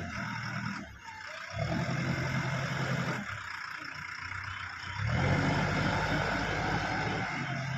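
JCB excavator's diesel engine working, its note swelling and dropping back in repeated surges as the machine takes load, over a steady high hiss.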